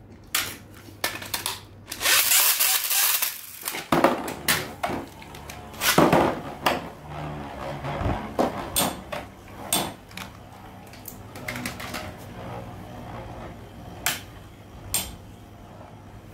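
Infinity Nado plastic-and-metal spinning tops battling in an arena: a dense burst of whirring noise about two seconds in, then irregular sharp clicks and knocks as the tops strike each other and the arena wall.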